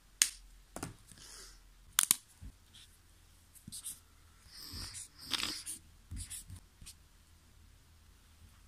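A Stabilo Boss highlighter's cap being pulled off with sharp clicks near the start and about two seconds in. Then a few short strokes of its felt tip scratch across the paper pages of a test book.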